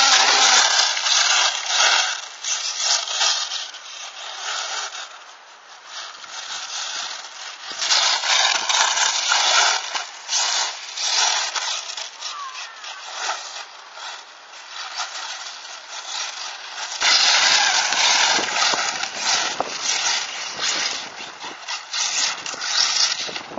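1/8-scale RC buggies, a Team Associated RC8B converted to a brushless electric motor among them, running on a dirt track. The motors whine high, rising and falling with the throttle, with tyres scrabbling and scraping over loose dirt. The sound dips in the middle and grows louder again near the end.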